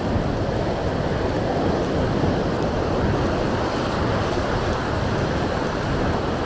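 Sea surf washing onto the beach with strong wind buffeting the microphone: a steady rush of noise with a low, flickering rumble and no break.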